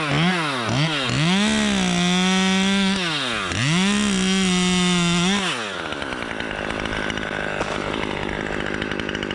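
Two-stroke chainsaw revving in several quick blips, then held at high revs twice for about a second and a half each, dropping back to idle a little over halfway through.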